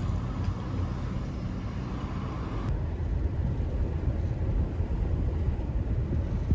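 Steady low rumble of a moving vehicle, which cuts off abruptly at the end.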